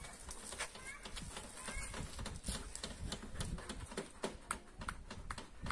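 A quick, irregular run of sharp clicks, several a second, thickening from about two seconds in, with two faint short chirps in the first two seconds.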